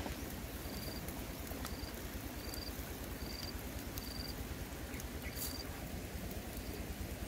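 Outdoor ambience over an open wood fire: a steady hiss with a few sharp crackles, and a short, high, single-pitched chirp repeated about once a second, as from an insect.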